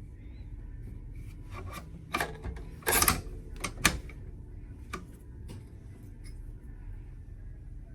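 Sharp mechanical clicks and clacks from handling a B&T SPR300 Pro rifle, a handful spread across a few seconds, with the loudest, longest clack about three seconds in.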